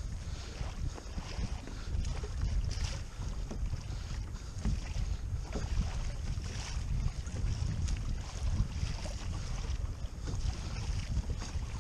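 Wind buffeting the microphone, with water splashing and washing along the hull of a Hobie Outback kayak as it moves through choppy water.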